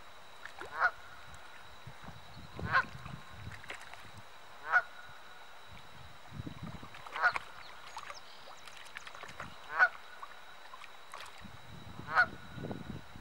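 Goose honking, six short calls spaced about two and a half seconds apart: the honking of an angry goose. Some low rustling near the end.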